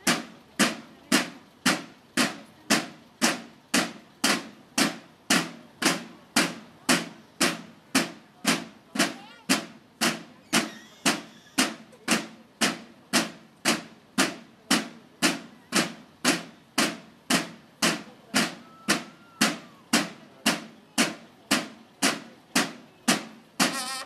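Marching drums of a drum and bugle corps beating a steady march cadence in unison, about two strokes a second. Near the end a bugle starts to sound over the drums.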